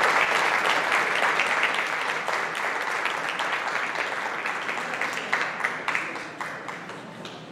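Audience applauding: a dense patter of hand claps that slowly thins and fades, leaving a few separate claps near the end.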